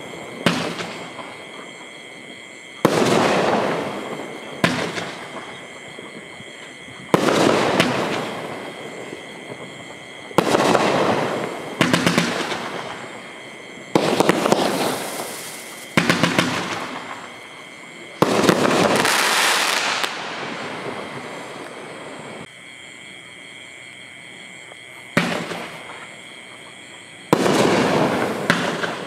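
Consumer firework cakes (Hot Fireworks Playmaker, then Golden Boot) firing shot after shot: about ten sharp reports roughly two to three seconds apart, each tailing off over a second or two. There is a lull of a few seconds about two-thirds of the way through.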